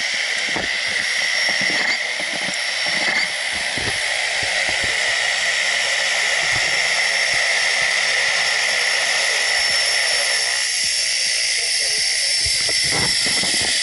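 Small single-engine propeller plane taxiing, its engine and propeller a steady high whine with hiss that grows a little louder over the first few seconds as it approaches.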